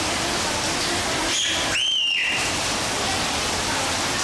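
Steady rain hissing onto wet tiles and puddles. A brief high tone sounds about two seconds in.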